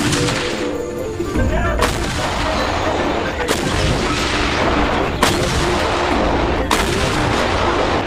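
Self-propelled artillery guns firing: four sharp blasts, evenly spaced about every second and a half, over a continuous rumble of gunfire.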